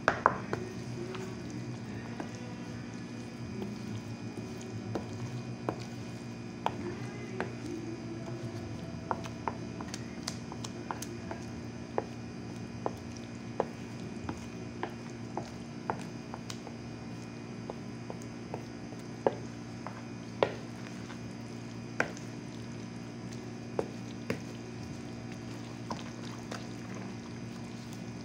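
Wooden spatula stirring a thick, wet batter of moringa leaves in a plastic bowl: wet squishing with irregular sharp taps and clicks of the spatula against the bowl, over a steady low hum.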